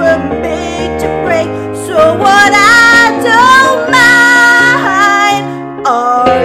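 A woman singing a pop song solo over a steady instrumental accompaniment, holding long notes and sliding between pitches.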